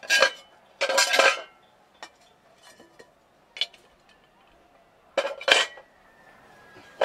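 Cast aluminium cooking pots and lids clanking against each other as they are handled and stacked: a run of separate metallic clanks with short ringing, the loudest near the start, about a second in and around five seconds in.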